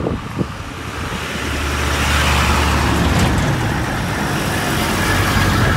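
Road traffic passing close by: engine rumble and tyre noise that grow louder about a second and a half in and stay loud.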